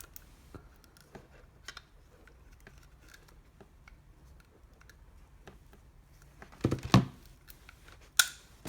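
Handling sounds of an anti-theft alarm sensor being stuck to the back of a mobile phone with adhesive tape: scattered light clicks and rustles, a louder knock about seven seconds in, and a sharp click near the end.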